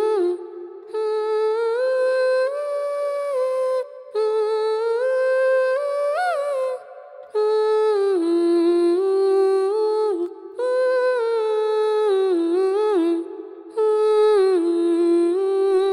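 Closing theme music: a high voice humming a simple stepwise tune in phrases of about three seconds, with short breaks between them.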